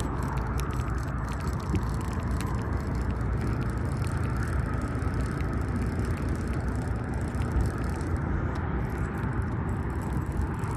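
Wind rumbling steadily on a phone's microphone, with faint light ticks scattered through it.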